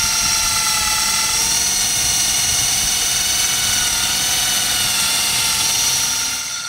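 Cordless drill running at a steady speed, a high, even motor whine, driving a paddle mixer that stirs two-component primer in a paint can. The sound gets quieter near the end.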